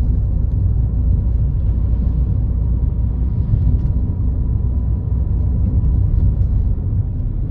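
Steady low rumble of a car being driven, heard from inside the cabin: engine and road noise.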